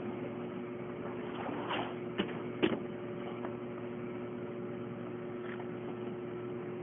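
Steady room hum made of several fixed tones, with a faint rustle and then two short clicks a little after two seconds in.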